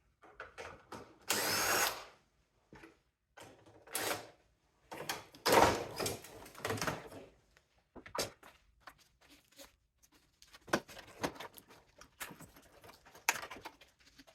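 Power drill running in short bursts, backing out screws, with scattered clicks and knocks of parts being handled between the bursts.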